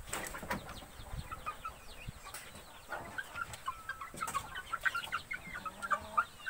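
Young native chickens (ayam kampung), about 50 days old, peeping and clucking: many short high chirps from several birds at once. There are scattered sharp clicks as they peck feed from a plastic tray.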